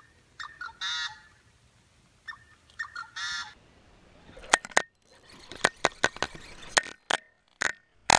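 Waterbirds calling, with two longer harsh calls about a second and three seconds in, goose-like by their sound. From about the middle on comes an irregular run of sharp clicks and knocks, louder than the calls.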